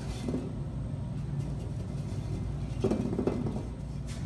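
A steady low hum, with a short knock and rustle about three seconds in as a bisqued ceramic vase is handled and sponged to clear glaze drips.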